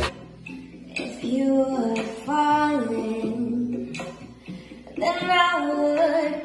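A high, young-sounding voice singing a slow melody in phrases of long held notes over faint backing music.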